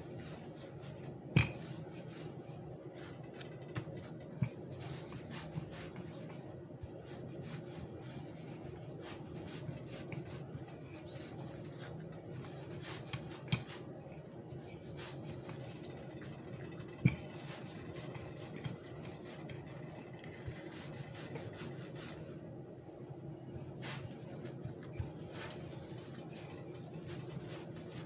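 Wooden rolling pin rolling out bread dough on a floured surface, a soft repeated rubbing. Two sharp knocks stand out, one about a second in and one about halfway through.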